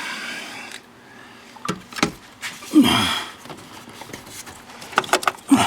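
Scattered clicks and knocks of wiring connectors and interior trim being handled in a pickup's cab, with a short falling sound about three seconds in.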